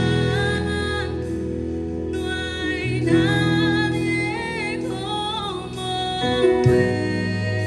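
A slow gospel worship song: a voice sings a gliding melody over instruments holding long, low notes.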